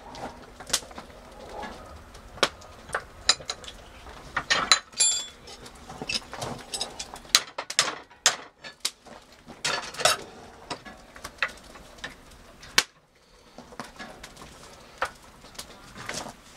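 Irregular sharp metal clinks and clanks of tongs and a wrench against a heated railroad spike held in a vise, as the smith tries to twist it.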